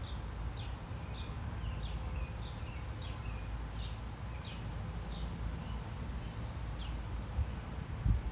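A songbird singing a repeated series of short, clear downslurred whistles, about two a second, which stops about seven seconds in. A steady low rumble runs underneath, with a single dull thump near the end.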